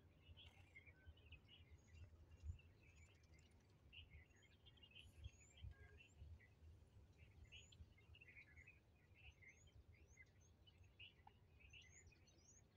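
Faint chirping of many small birds, dense and continuous, with short rising high chirps here and there, over a low rumble.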